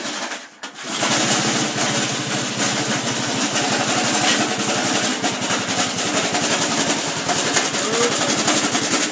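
An engine cranking over on its starter in a fast, even chugging rhythm without catching, starting about a second in; it is probably not firing because it has no gas.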